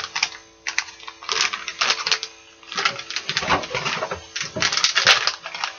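Crinkling and rustling of a plastic bait package as it is handled and opened, in irregular crackling bursts.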